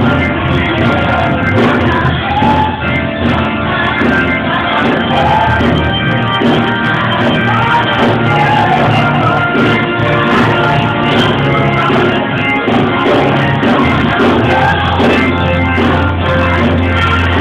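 Church choir singing with live instrumental backing, steady bass notes underneath the voices.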